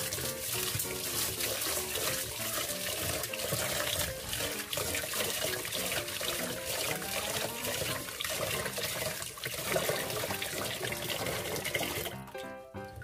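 Tap water running into a rice pot while a hand swishes the rice grains in the water, rinsing the rice. The running water stops about a second before the end, leaving background music.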